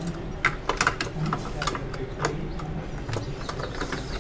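A rubber stamp and a paper passport booklet being handled against a metal stamp box: a quick string of sharp clicks and taps, thickest in the first two seconds.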